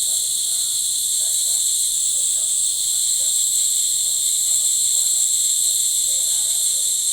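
Nebulizer hissing steadily as it turns cough medicine into a vapour mist for inhalation. Faint, irregular sounds sit low underneath the hiss.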